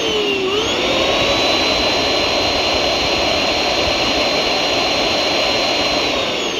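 Small electric gear motor of a homemade model excavator whining over a gear hiss. The pitch dips and climbs at first, holds steady for several seconds, then starts to drop near the end.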